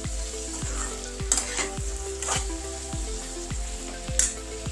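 A metal slotted spatula stirring and scraping tinda and onions around a kadai, one sharp scrape roughly every second. Underneath is a steady sizzle from the vegetables frying in oil and spices.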